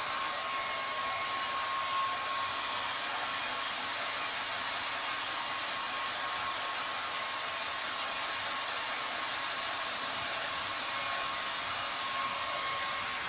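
Handheld hair dryer running steadily as it dries long wet hair: an even rushing of air with a faint steady whine from its motor.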